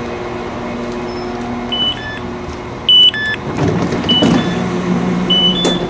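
A 4000 Class CAF diesel multiple unit standing at the platform with its engine running steadily, while short high door beeps sound again and again. A very loud sharp sound comes about three seconds in, and after it the hum turns lower and steadier, as heard from inside the carriage.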